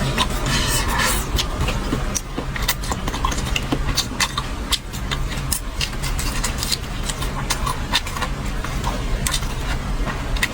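Close-up eating sounds: chewing and mouth smacking, heard as many sharp irregular clicks over a steady low rumble.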